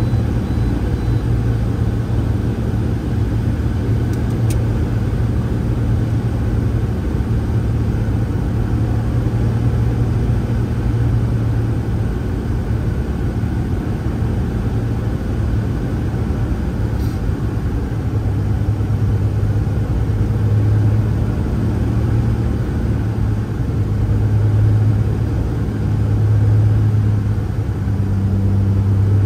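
Cessna 180's six-cylinder piston engine and propeller droning steadily in cruise flight, swelling and fading a few times in the last ten seconds.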